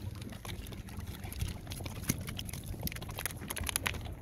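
Plastic cookie pouch crinkling and rustling in irregular crackles as it is handled and pulled out of its heating pouch, over a steady low rumble.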